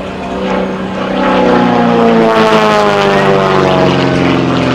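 Super Chipmunk's piston engine and propeller running loud as the aerobatic plane flies close overhead. It gets louder about a second in, and then the engine note falls steadily in pitch.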